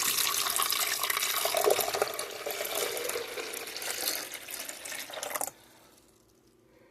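Water poured into the reservoir of a 12-cup drip coffee maker, splashing steadily and then stopping abruptly about five and a half seconds in.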